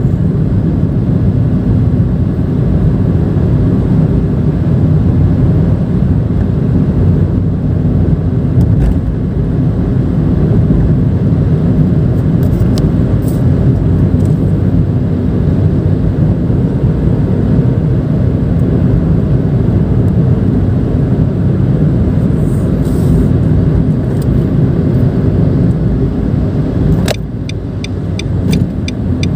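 Inside the cabin of a moving Nissan March 1.2, its three-cylinder engine hums steadily under road and tyre noise. The sound eases slightly near the end, and a regular clicking begins.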